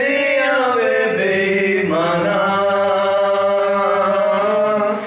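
Two men singing a slow melody in long held notes that bend in pitch, moving to a new note about two seconds in.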